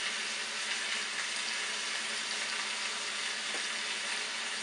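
Garlic and olive oil sizzling steadily in a hot frying pan, with one faint tick about three and a half seconds in.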